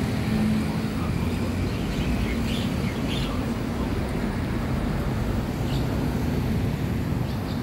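Steady road traffic noise with a low rumble at a level crossing beneath a road flyover, with a few short high chirps about two to three seconds in and again near the end.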